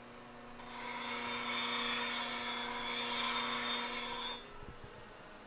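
Wood lathe, a gouge cutting a spinning wooden bowl: a steady cutting sound with high ringing tones, lasting about four seconds and stopping suddenly.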